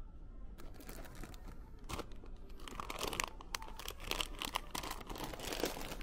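Plastic film wrapper on a pack of sponges crinkling as it is picked up, handled and put back on the shelf. The crinkling starts about half a second in and grows busier and louder from about halfway through.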